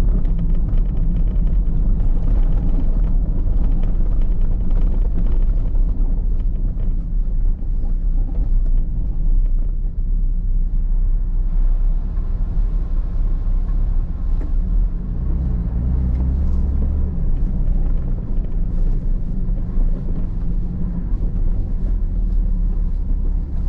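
Vehicle driving along an unsealed gravel road: a loud, steady low rumble of engine and tyre noise.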